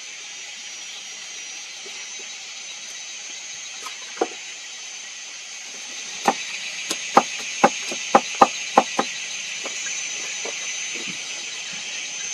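A steady high chirring of insects, with one sharp knock about four seconds in and then a run of about eight sharp knocks, roughly three a second, over some three seconds.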